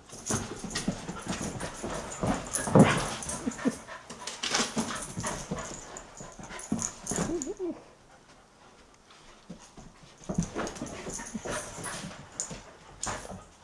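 A collie and a Belgian Tervuren puppy play-fighting, with short whines and yips amid scuffling and clicking, and a quieter lull about two-thirds of the way through.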